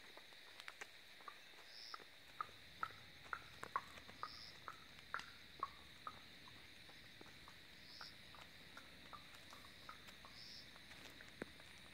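Quiet forest ambience: a steady high insect drone, with a short high chirp that repeats every two to three seconds. Soft, irregular footsteps on the wet paved road tick through it.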